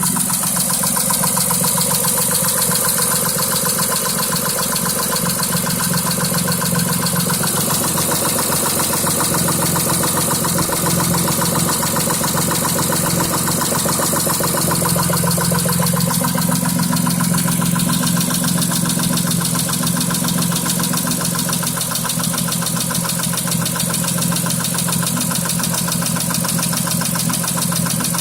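2006 Mitsubishi Eclipse V6 engine running steadily with a fast, regular knock. The knock began right after an oil change and comes with a misfire code for cylinder 5.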